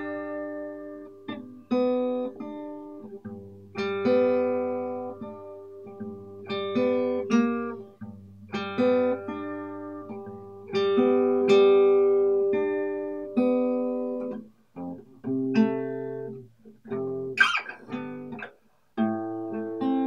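Solo acoustic guitar: chords picked and left to ring, in phrases separated by brief stops where the strings are damped.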